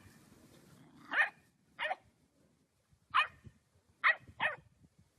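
A dog barking five times in short, separate barks spread over a few seconds, the last two close together.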